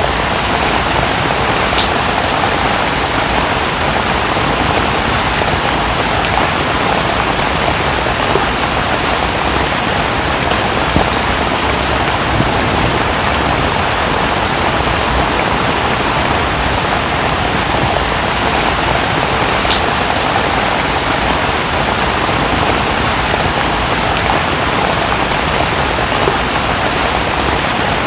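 Steady rainfall, an even hiss of many drops, with a few single louder drop hits standing out now and then.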